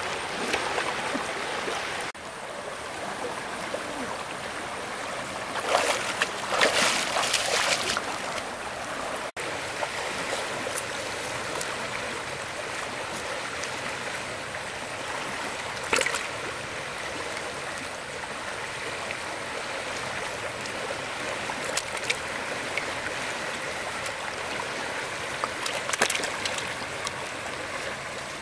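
Water in a stream running steadily, with a few short louder sounds standing out about a quarter of the way in, halfway through and near the end.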